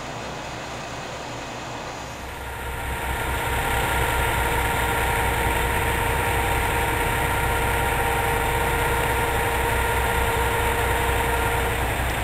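Diesel engines of a JR Shikoku 2000 series tilting railcar idling while the train stands still: a steady low rumble with a steady whine over it, growing louder about two to three seconds in.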